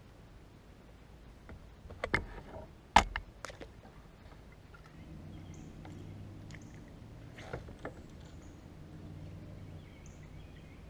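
A few sharp knocks and clatters against a kayak and bucket as a caught crappie is put into the bucket, the loudest about three seconds in. After that, a low steady hum and a few short high chirps.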